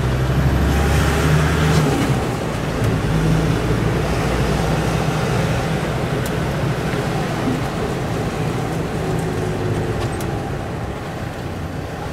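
Car engine running low and tyres hissing on a soaked road, heard from inside the car. The engine is louder for about the first two seconds, then eases off.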